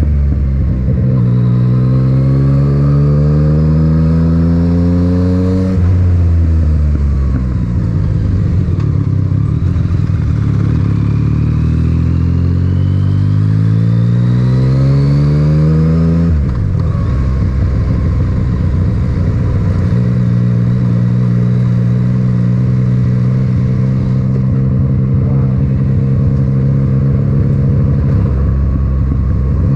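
Yamaha MT-09's three-cylinder engine through an Akrapovic titanium exhaust, heard from the rider's helmet: revs climb steadily under acceleration, drop sharply about six seconds in at a gear change, climb again, drop once more about sixteen seconds in, then the engine holds a steady note at cruising speed.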